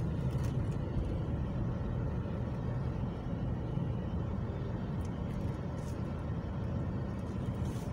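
Steady low rumble of a car's engine and tyres, heard from inside the cabin as the car moves slowly.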